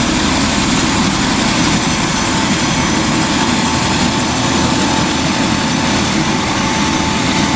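Light turbine helicopter with a fenestron tail rotor flying close by at low height: steady rotor and engine noise with a thin steady whine above it.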